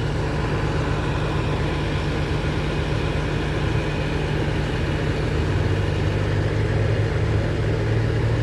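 Steady low hum of an idling engine, growing a little stronger about five and a half seconds in.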